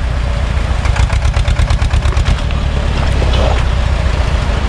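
Same tractor's diesel engine running steadily as it pulls a trailer through a shallow stony river, with a rapid even beat of engine firing.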